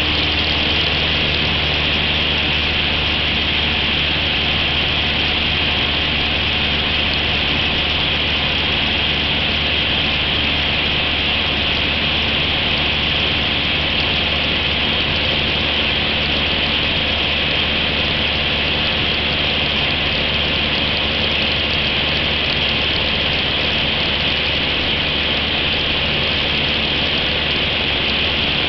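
Cessna 172's engine and propeller running steadily in flight, heard from inside the cabin as a constant low hum with an even hiss over it.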